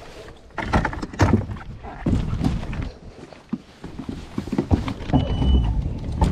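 Irregular knocks and clunks from a bow-mounted trolling motor being raised out of the water and locked onto its deck mount, along with gear being handled on the boat. A short high beep sounds near the end.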